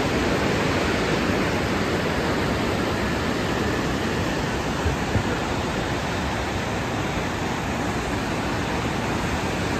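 Upper Mesa Falls on Henrys Fork of the Snake River: the steady rush of a large waterfall and the whitewater below it.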